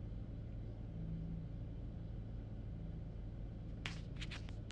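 Steady low background hum, with a few short clicks close together near the end.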